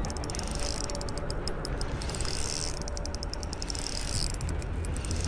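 Fishing reel clicking rapidly in runs that start and stop while a hooked bass is being fought.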